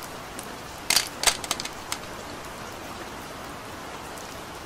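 Steady rain falling, with a quick run of about six sharp clicks and taps about a second in.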